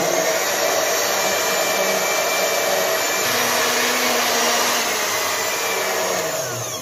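Electric blender running at full speed, churning yogurt, milk, sugar and water into lassi in a glass jar; a steady motor whine that begins to wind down right at the end as it is switched off.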